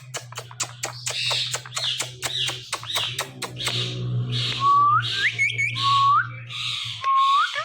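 A ringneck parrot chattering with rapid clicks and scratchy calls, then whistling three short rising notes in the second half. A steady low hum runs underneath and stops shortly before the end.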